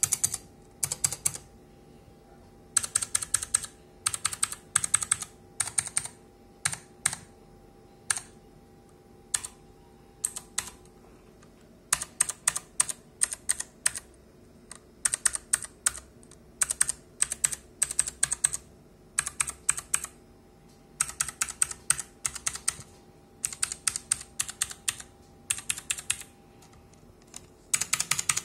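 Typing on a RAKK ILIS mechanical keyboard with Outemu Blue clicky switches: sharp clicks in quick runs of keystrokes, broken by short pauses.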